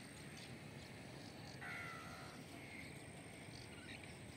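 Faint outdoor ambience by the water, with a few small chirps and one short pitched animal call about a second and a half in.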